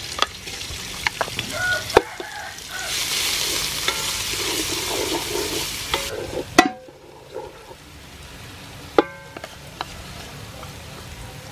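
Pounded Khmer spice paste (kroeung) frying in hot soybean oil, sizzling as it is stirred in the pan. The sizzle is loudest in the middle and dies down after a sharp knock of the utensil on the pan about two-thirds of the way through. A few more knocks and scrapes of the utensil are heard.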